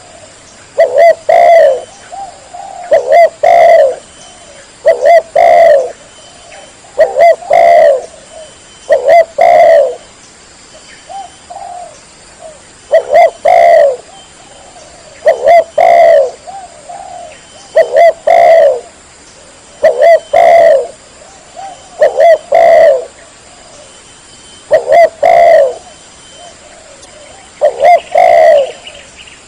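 Spotted dove (tekukur) giving its cooing song: short phrases of a few low coos, repeated every two to three seconds with a couple of slightly longer pauses. It is the territorial call used as a lure to draw rival doves.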